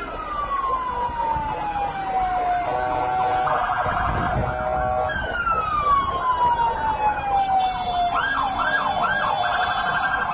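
Emergency vehicle siren: a long falling wail, a steady horn-like blast about three seconds in, another falling wail, then a rapid up-and-down yelp from about eight seconds on.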